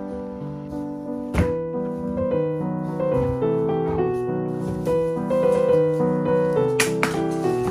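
Background piano music playing a gentle melody. Two short sharp hits cut across it, about a second and a half in and again near the end.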